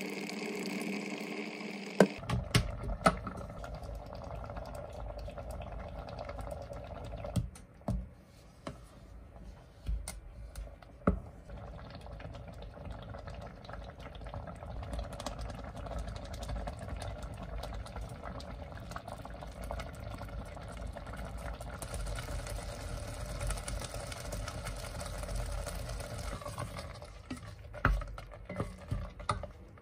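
Fig jam simmering in a stainless steel pot, stirred with a wooden spatula that now and then knocks against the pot, in sharp clicks near the start, around the middle and near the end, over a steady hum.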